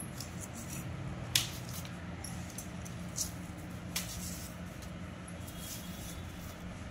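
Parathas being laid on a plate and handled: a few light taps and soft rustles over a steady low hum. The sharpest tap comes about a second and a half in.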